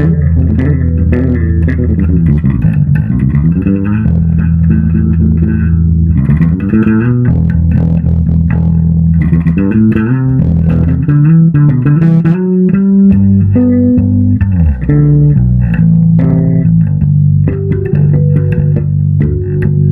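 Electric bass guitar played fingerstyle: a melodic line of held low notes, with slides up and down in pitch between some of them.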